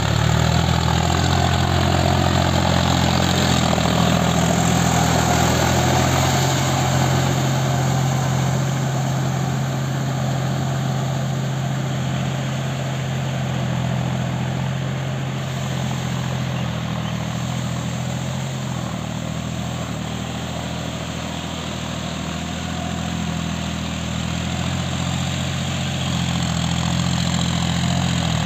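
John Deere tractor's diesel engine running steadily while pulling a rotary tiller through a flooded paddy field, with a broad hiss of churning water and mud over the engine. The engine sound eases a little past the middle and grows louder again near the end.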